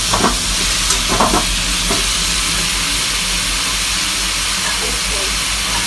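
Diced pumpkin and onion sizzling in hot oil in a kadai, with a metal spatula scraping and knocking against the pan a few times in the first couple of seconds as it is stirred. After that the sizzle goes on steadily.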